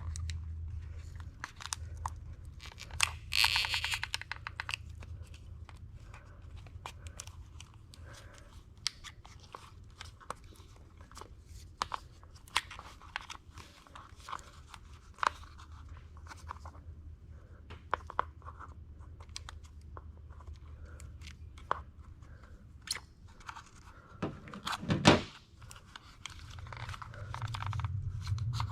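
Vinyl wrap film crinkling and crackling as it is handled, pulled and pressed around a door handle, with scattered small clicks, a short rustling tear about three seconds in and a louder sharp crackle about 25 seconds in.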